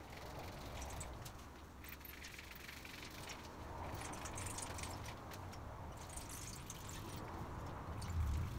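Faint crinkling of a paper template and small scattered clicks as it is traced onto a board by hand, over a low steady hum.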